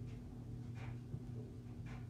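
Quiet room tone with a steady low hum, and faint soft hissing sounds about once a second.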